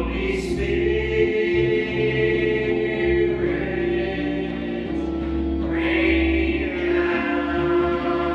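A small group of church worship singers singing a hymn together into microphones, with long held notes over a steady instrumental accompaniment.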